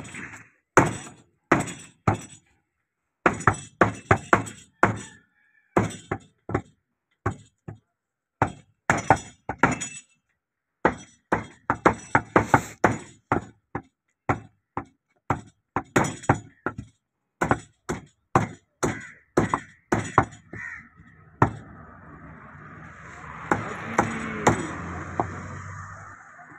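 Heavy cleavers chopping beef on wooden stump chopping blocks: sharp thwacks in quick runs of several strokes, with short pauses between runs. In the last few seconds a steady background noise swells and fades under the chopping.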